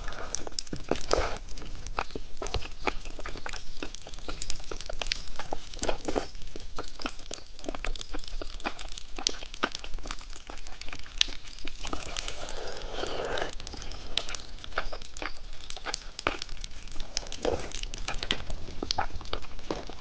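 Close-miked eating of a candy with popping candy on it: many wet mouth clicks and crackles as it is chewed.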